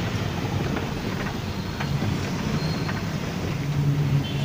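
Steady engine and road noise inside the cabin of a moving car, with a low hum and some wind noise.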